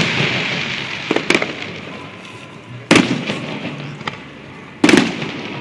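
Aerial fireworks shells bursting: a fading crackle at first, two sharp bangs just over a second in, then louder booms about three and five seconds in, each rumbling away.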